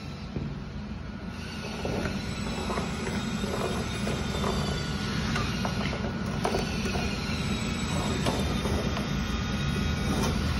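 Soapstone stick scratching along the edge of a steel framing square onto wooden boards, in repeated short strokes, over a steady low rumble.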